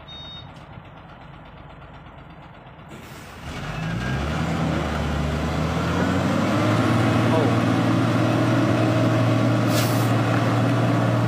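Hino FM 350 TH tractor unit's diesel engine idling low, then revving up about three and a half seconds in and holding at steady high revs under heavy load as the truck strains to pull its 72-ton trailer through rain-soaked mud. A brief hiss of air about ten seconds in.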